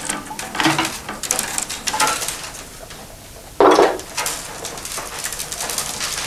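Willow rods scraping, creaking and rustling as they are worked into a wicker basket, with small clicks of a metal awl against the weave. Several short scrapes, a brief lull, a louder scrape about three and a half seconds in, then steady rustling of the long rods.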